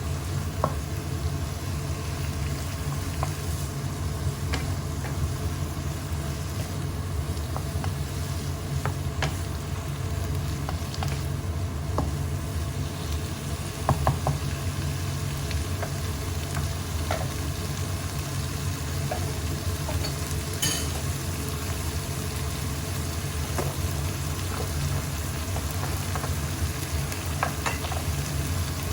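Asparagus being stir-fried with shrimp paste in a pan: a steady sizzle over a low hum, with the spatula clicking and scraping against the pan now and then.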